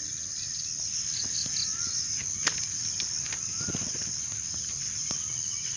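Steady, high-pitched chorus of insects in the bankside vegetation, unbroken throughout, with a sharp click about two and a half seconds in.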